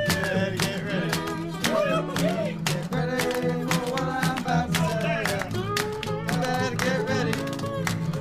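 Background song with a steady beat and plucked guitar.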